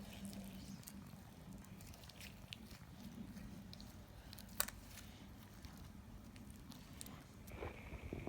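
Slime being handled: faint, scattered sticky crackles and small clicks, with one sharper click about four and a half seconds in.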